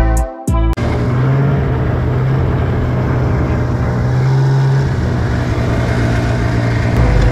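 A snowmobile engine running steadily under way, a constant low drone under a wash of noise. A short stretch of music with a beat cuts off under a second in.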